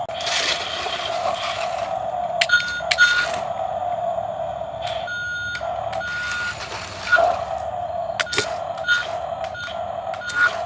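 A steady electronic tone that breaks off and resumes several times, with short higher beeps, sharp clicks and brief scraping noises over it.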